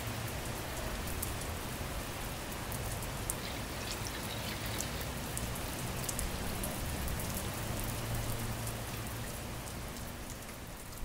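Steady rain falling and dripping, with many small sharp drop ticks over an even hiss and a low rumble underneath.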